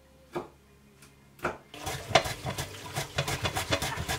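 Two faint clicks, then from about two seconds in a busy clatter of hands washing vegetables in a metal bowl under a running kitchen tap.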